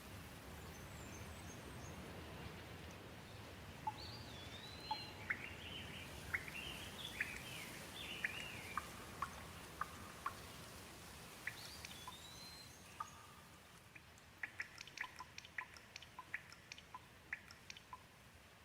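Gentle, steady rain with a bird calling over it, a string of short whistled chirps and arching notes from about four seconds in. Later the rain quietens and a quick run of short sharp ticks and chips follows.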